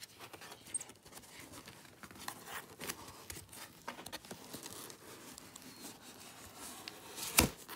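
Cardboard box being scratched, tugged and rustled by a capuchin monkey's hands, with scattered small scrapes and taps. One loud knock near the end.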